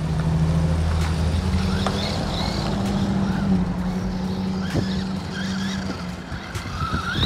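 A 1:18 scale RC truck's small brushed 380 electric motor whining in short rises and falls as it drives on wet pavement, over the steady low hum of a passing car.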